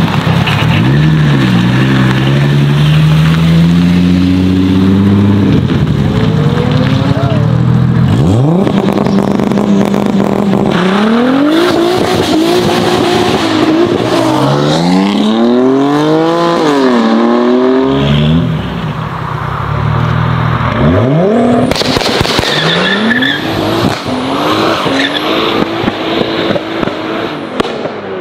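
BMW E34 5 Series sedan's engine revving hard and accelerating through the gears, its pitch climbing and falling back at each shift. Near the end, tyres squeal as a car spins its wheels and lays down smoke.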